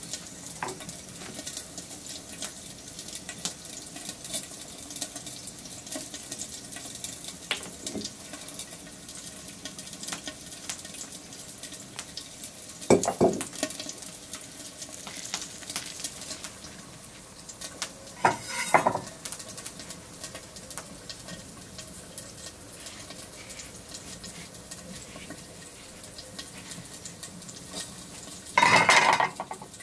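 Wood fire crackling steadily with many small pops. A couple of brief handling sounds come through it, and near the end a large kitchen knife cuts into a whole avocado, the loudest sound.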